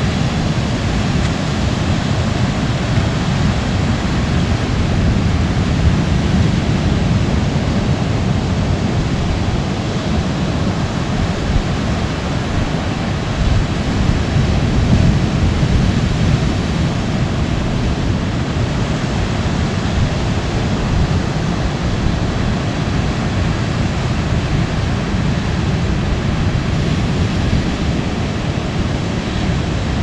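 Ocean surf breaking on rocks and sand, a steady deep rush that swells a little about five seconds in and again around fourteen seconds in.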